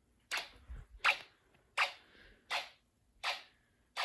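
Snap Circuits fire alarm system running in drill mode: its relay clicking sharply and evenly, about once every three-quarters of a second.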